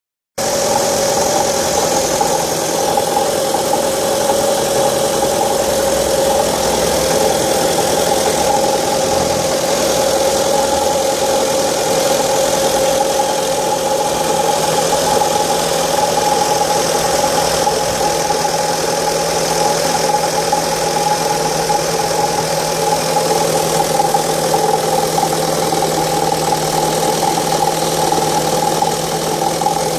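Fiat Stilo 1.8 petrol four-cylinder engine idling steadily just after a cold start, with a steady tone over the running: the strange cold-start noise the owner is asking about.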